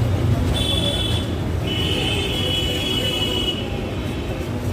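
Steady street traffic rumble. A high-pitched steady tone sounds twice over it: briefly about half a second in, then for about two seconds.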